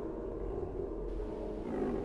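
Low, steady rumbling drone: dark ambient underscore.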